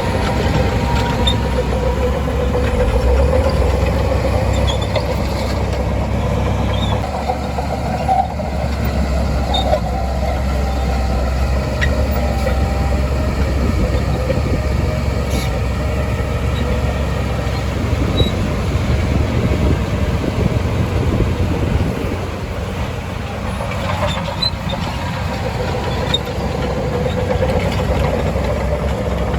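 Shantui DH17C2 crawler bulldozer working steadily: a continuous low diesel rumble, with its tracks and machinery rattling and faint wavering squeals over it.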